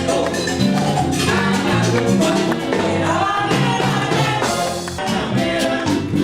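Latin American band music in salsa style, with steady percussion under bass and melody instruments.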